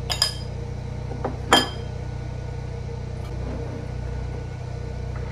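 Two sharp clinks of a metal spoon against a ceramic bowl, about a second and a half apart, the second louder, with a short ringing tail. Under them runs the steady hum of a home backup generator.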